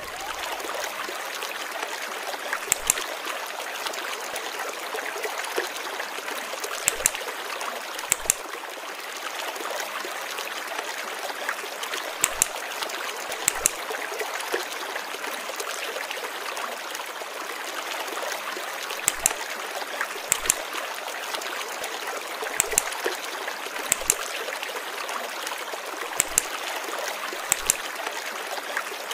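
Steady running water, like a flowing stream, with about fourteen sharp clicks at irregular intervals.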